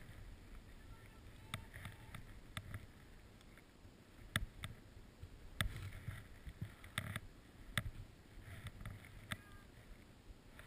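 Faint rustling of outdoor gear close to a helmet camera, broken by a handful of sharp clicks.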